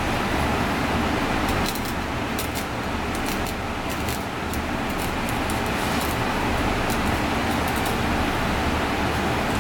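Steady background rumble and hiss, with a run of faint light clicks through the middle seconds as a knife is drawn along a belt fish's backbone while filleting it.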